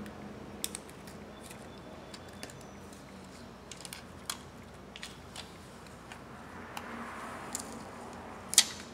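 Scattered small clicks and taps of iPhone parts being handled and pressed together on a work mat, the loudest click just before the end.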